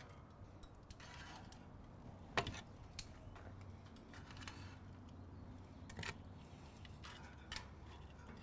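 A few faint metallic clicks and taps of steel tongs against a kamado grill's metal cooking grate as pork shanks are lifted off, spaced irregularly over a low steady background.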